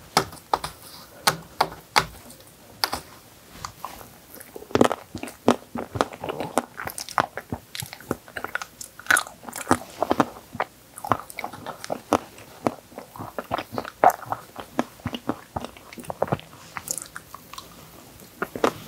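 Close-up eating sounds: the thin white chocolate top of an Oreo tiramisu cracked with a plastic spoon, then bitten and chewed, as a steady run of sharp clicks and crunches.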